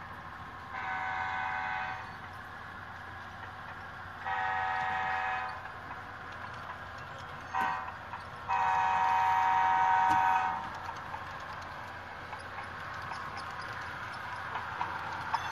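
Sound-equipped model Amtrak F40PH locomotive sounding a multi-tone horn in the grade-crossing pattern: two long blasts, a short one, then a final long one. A steady running sound lies underneath and grows louder, with scattered clicks, near the end.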